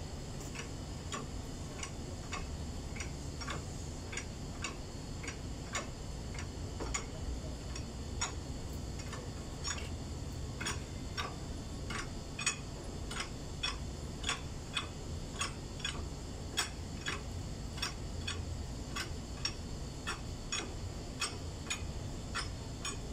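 Truck cab-tilt hand pump worked with a long lever bar, clicking at a steady rhythm of about two clicks a second as it is pumped, over a low steady hum.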